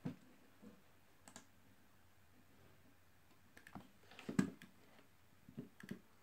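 Scattered clicks and taps from a computer's mouse and keys as the user pages through pictures. There is a louder cluster of clicks a little over four seconds in and a pair just before the end.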